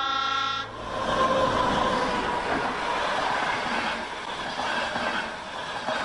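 A First Great Western High Speed Train (InterCity 125) passing close by: the rushing rumble of its carriages and diesel power car, with a faint tone that falls slightly in pitch as it goes past. A held musical chord cuts off less than a second in.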